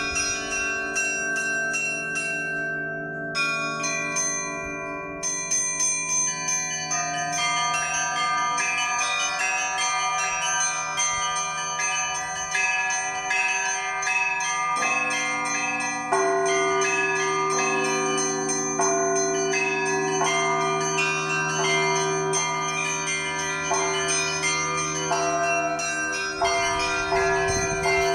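Church bells ringing in a continuous peal: many bells of different pitches struck in quick succession, each left to ring on, over a steady low hum.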